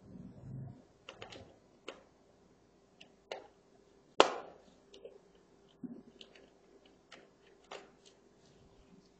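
Small screwdriver turning screws out of an opened laptop's chassis: scattered sharp clicks and taps of metal and plastic, the loudest a single click about four seconds in, over a faint steady hum.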